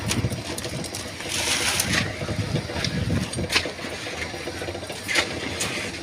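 Hoes scraping and spreading wet concrete over the steel reinforcement of a roof slab, with a few sharp metal clicks, over a steady engine running.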